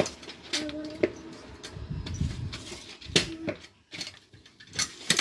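Hello Kitty kick scooter clattering on hard pavement during a 180 spin attempt: a run of sharp knocks and metallic clinks from the deck and wheels, with a low rolling rumble of the wheels around two seconds in.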